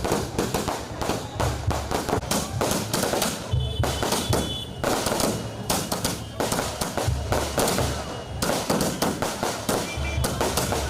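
A string of firecrackers going off in a fast, uneven crackle of many small bangs, with music playing underneath.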